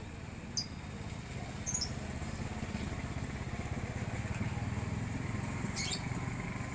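A small engine running steadily with a low, fast-pulsing rumble that grows a little louder after the first second or so. Brief high chirps from birds come and go over it.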